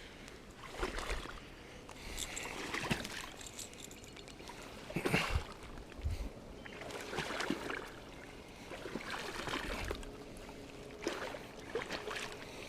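A person wading through shallow water, with an uneven slosh and splash at each step every second or two.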